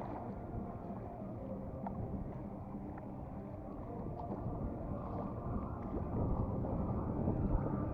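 Strong wind buffeting the microphone: a low, rumbling rush of noise that grows louder over the last couple of seconds.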